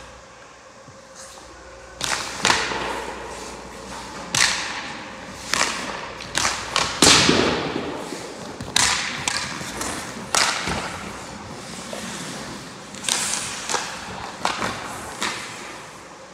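Ice hockey goalie drill: a dozen or so sharp knocks of pucks and sticks against the goalie's pads and the ice, mixed with skate blades scraping. The knocks echo in the rink and start about two seconds in.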